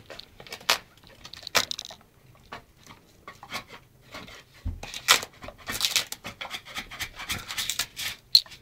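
German shepherd scraping and tearing at wallpaper with its teeth: a run of irregular clicks and scratches, busier in the second half.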